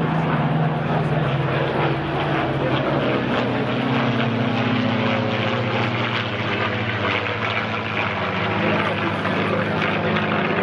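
A P-51 Mustang and a P-40 Kittyhawk in a low formation pass, their V-12 piston engines and propellers making a loud, steady drone. The engine note shifts in pitch about halfway through as they pass.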